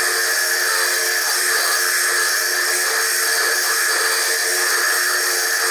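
Foredom bench lathe spinning a stone while a core drill grinds it into a sphere: a steady whirring hiss, sped up to three times normal speed.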